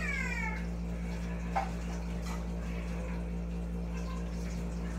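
A cat meowing: one drawn-out call that rises and then falls, ending about half a second in. A single sharp clink follows about a second and a half in, over a steady low hum.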